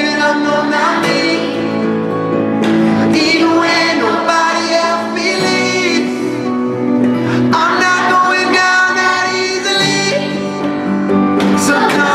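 Background music: a song with a singing voice over guitar and held instrument chords.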